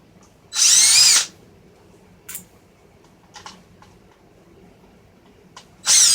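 A small cordless electric screwdriver spins briefly twice, about five seconds apart, with a high whine that rises and falls, driving out the small screws of a car radio's chassis. There are a few faint clicks in between.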